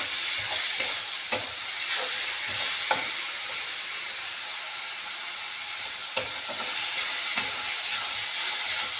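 Chopped onion and tomato sizzling in oil in a steel kadai, stirred with a steel spatula that scrapes and clicks against the pan now and then.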